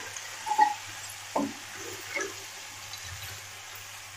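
Spatula stirring wilting gongura leaves in a kadai: a few short scrapes and knocks against the pan over a low steady hum.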